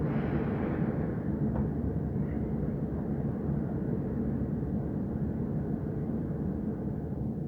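Dubai Tram running, a steady low noise that comes in abruptly at the start, with a brighter hiss fading over the first second.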